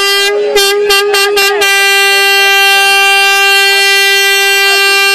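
Air horn blown by a spectator: several short toots in the first second and a half, then one long steady blast at a single high pitch.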